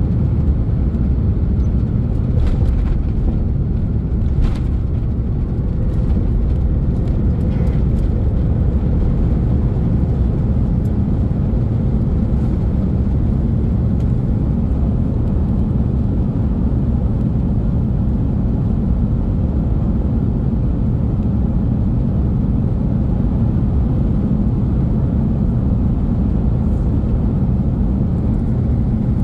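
Steady low rumble of an Airbus A330neo airliner heard from inside the passenger cabin, with a few light clicks in the first several seconds.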